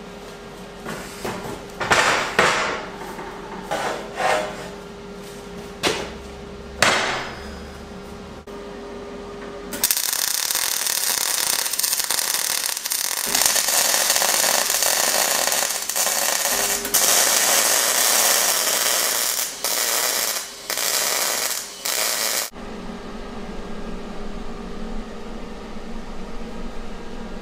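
Heavy steel-tube frame clanking and knocking several times against a steel welding table. Then about twelve seconds of arc welding on the frame's base plate, a steady hissing noise that breaks into a few short welds near the end. A steady shop hum runs before and after the welding.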